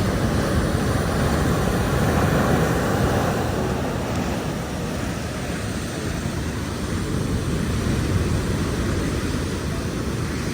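Pacific Ocean surf: a steady rushing wash of breaking waves, heavy in the low end, easing a little about four seconds in.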